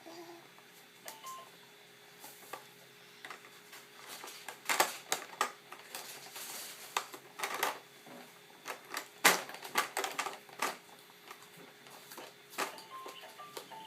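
A baby coughing: a run of short coughs, densest and loudest through the middle stretch. Lighter clicks and knocks come before and after.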